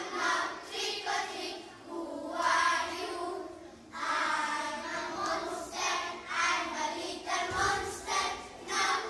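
A group of young children singing a song together in unison, with a brief pause about four seconds in.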